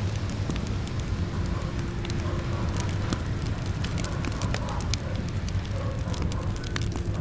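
Fire crackling with frequent, irregular sharp pops over a steady low rumble of burning.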